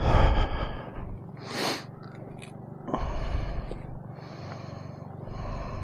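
KTM 390 Adventure's single-cylinder engine idling low and steady, under loud puffs of breath and rustle on the microphone: one right at the start, a hissing one about a second and a half in, and another about three seconds in.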